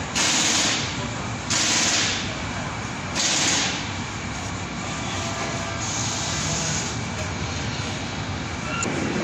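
Three short hissing bursts from a spray nozzle, each under a second and about one and a half seconds apart, in the first four seconds, then a steady low background hum.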